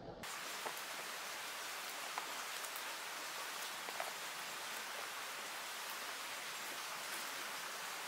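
Steady rain falling, an even hiss with scattered individual drops ticking.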